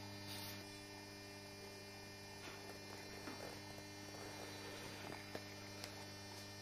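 Faint steady electrical mains hum under low background noise, with two soft ticks near the end.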